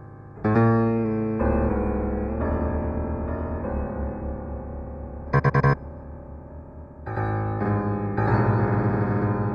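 Electronic music of synthesized electric-piano-like keyboard tones, several notes layered and held, starting about half a second in. Around the middle comes a quick stutter of rapidly repeated notes, and from about seven seconds in the sound gets fuller and louder.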